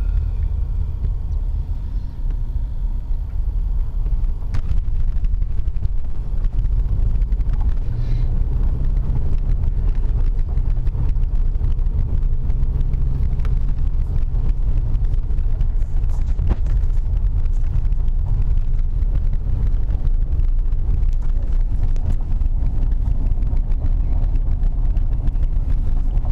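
Steady low rumble of a car driving, the engine and road noise heard from inside the cabin, with a few faint knocks.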